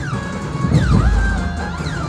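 Dhumal band music played loud over a large speaker set. Heavy bass runs under a melody line that slides down and back up in pitch, about once a second.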